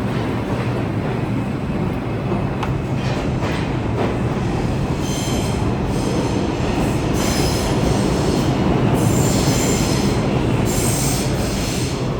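NYC subway R62A train running on steel rails, with a few rail-joint clicks and then high-pitched wheel squeal that comes and goes in several stretches from about five seconds in.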